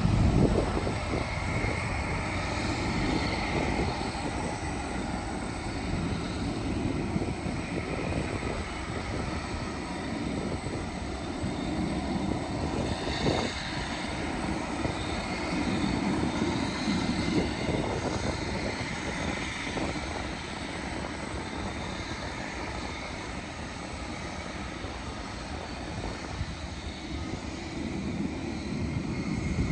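Jet airliner engines heard on the approach to land, a steady rushing noise with a faint high whine that swells and eases a little.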